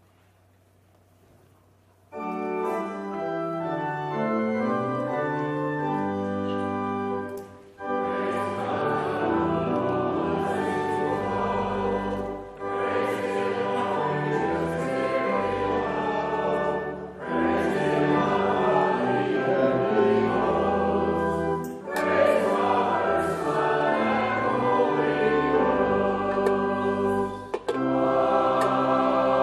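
A church choir and congregation singing a hymn to pipe-organ accompaniment. The singing comes in after about two seconds of near silence and goes in phrases of about five seconds, with short breaks between them.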